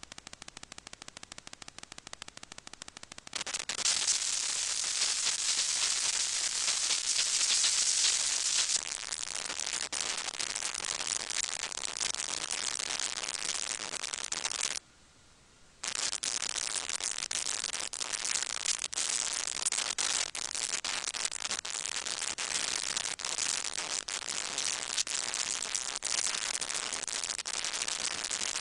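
Crackling static: a fast, even run of clicks at first, then from about three seconds in a louder hissing crackle full of clicks, which drops out for about a second midway.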